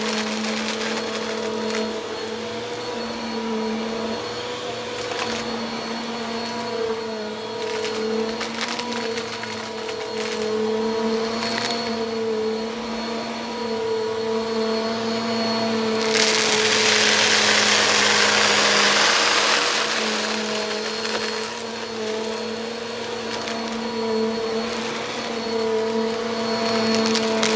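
Bissell vacuum cleaner running steadily, its motor humming with a slightly wavering pitch and a few faint ticks. For several seconds about halfway through, a louder rush of air swells up over the hum and then falls back.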